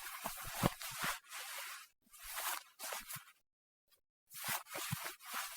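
A sleeping person's snoring: three raspy, crackly breaths, the second shorter than the other two, with dead silence between them.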